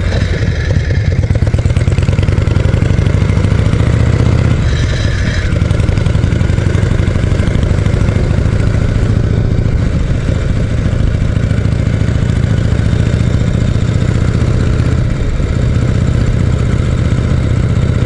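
Harley-Davidson Shovelhead air-cooled V-twin engine running steadily as the motorcycle is ridden, heard from the rider's position.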